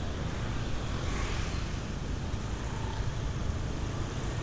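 Motor scooter ride: steady wind rush on the microphone over the scooter's engine and road noise while riding along at speed.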